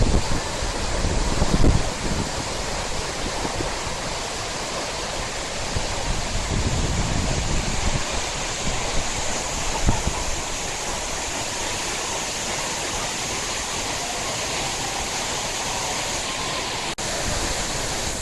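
Waterfall: a steady rush of falling water, with low bumps of wind on the microphone in the first few seconds.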